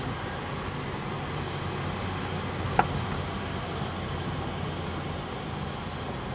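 Opel Kadett C driving downhill, heard from inside the cabin: a steady mix of engine and tyre noise on a narrow, bumpy road. A single sharp knock comes about three seconds in.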